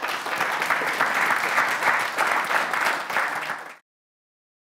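Audience applauding, a dense, steady clapping that cuts off suddenly a little before the end.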